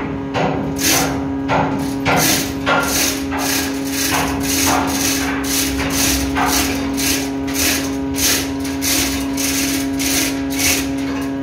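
Orange lever hoist (ratchet lever block) being pumped to haul on the anchor chain: a run of sharp metallic ratchet clicks, about two to three a second, over a steady hum.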